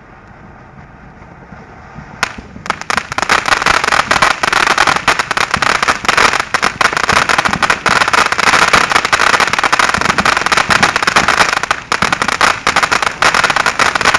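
Fountain firework, Phantom Fireworks Vibrant Voltage, erupting suddenly about two seconds in and then spraying with a dense, continuous crackle.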